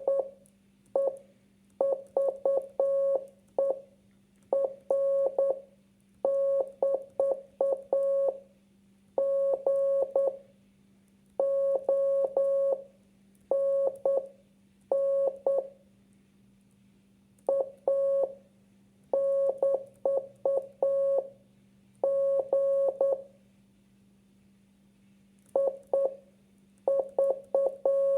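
Morse code practice tone keyed by hand: a single mid-pitched beep sent in dots and dashes, grouped into letters with short pauses between groups. A faint steady low hum runs underneath.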